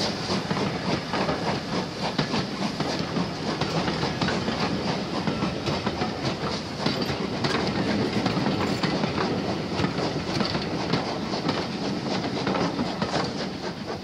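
Passenger coaches of a heritage train rolling past close by, their wheels clattering steadily over the rails.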